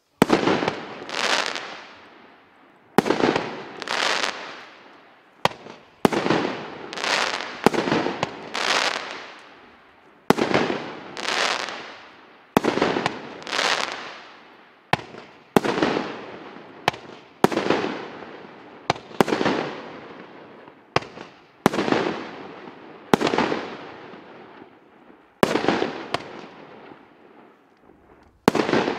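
A 36-shot consumer firework cake firing shot after shot, about one every second or so. Each shot is a sharp launch bang followed by an aerial burst that fades out over about a second.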